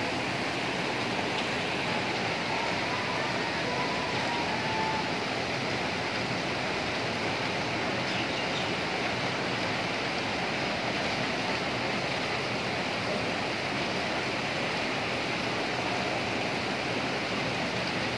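Steady rushing of a swollen, muddy river in flood, a dense even noise that does not change.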